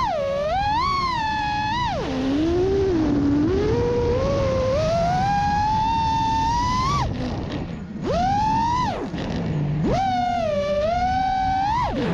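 FPV drone's electric motors whining, the pitch sweeping up and down with the throttle, with several sharp drops and quick surges back up.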